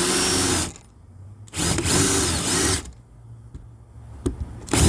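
Power drill drilling out the rivets that hold a broken interior door handle, run in two bursts of about a second each, with a shorter burst near the end.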